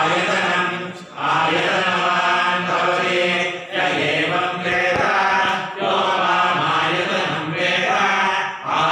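Vedic mantra chanting: a steady recited chant on held pitches, in phrases of about two to three seconds with brief breaks for breath between them.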